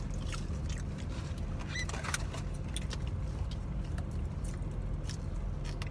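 Steady low rumble of a car's interior, with scattered faint clicks and light rustling from people shifting in their seats.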